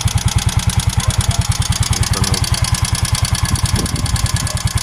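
A motorcycle engine idling with an even, rapid knock. The owner believes the knock comes from the piston.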